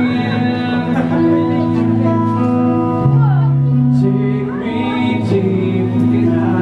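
A song playing: a singing voice over held chords that change every second or two.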